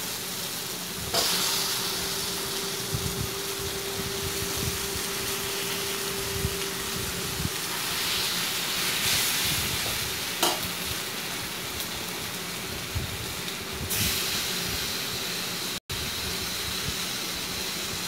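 Chicken pieces sizzling in hot masala in a stainless steel kadai, with a steel ladle stirring, scraping and knocking against the pan a few times. The sound cuts out for a split second near the end.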